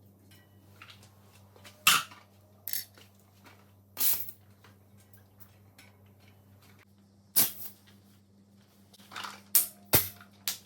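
Bicycle parts and tools being handled during assembly: about eight sharp metallic clicks and clinks at irregular intervals, over a steady low hum.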